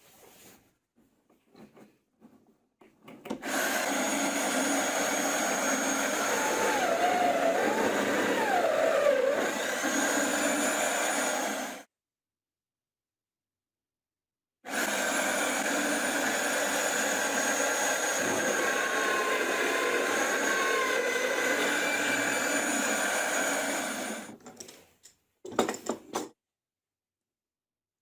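Electric router motor running steadily while its bit bores into a stack of glued wooden discs, with a steady high whine and a pitch that wavers briefly under load in the first run. The sound cuts off suddenly after about nine seconds, returns a few seconds later for another long run, then dies away, with a few light clicks and knocks before and after.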